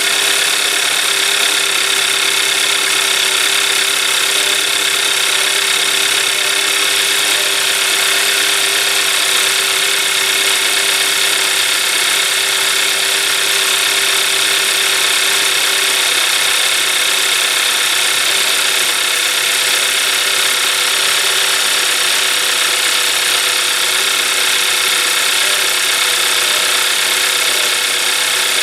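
Hyundai Elantra GT engine idling, loud and steady. The idle holds without a stumble or stall while the crankshaft position sensor harness is wiggled, so the test shows no wiring fault.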